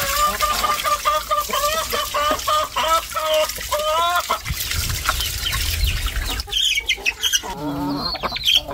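Chickens clucking: a run of short repeated calls over the first few seconds, then more calls near the end.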